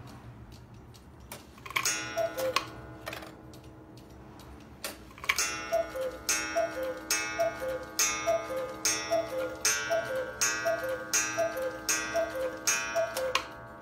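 Hones chalet cuckoo clock calling the hour. One two-note cuckoo call comes about two seconds in, then a run of about a dozen high-low cuckoo calls, each with a sharp strike, over the steady ticking of the pendulum.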